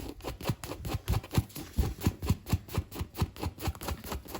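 Patch-kit scrubber rasped back and forth over a rubber bicycle inner tube around the puncture, about three to four quick scraping strokes a second, stopping abruptly near the end; the tube is being roughened to take rubber cement and a patch.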